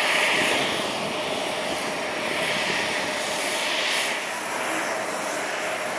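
Jet airliner engines running at low taxi power: a steady rushing noise that swells and eases a little, with a faint held tone underneath.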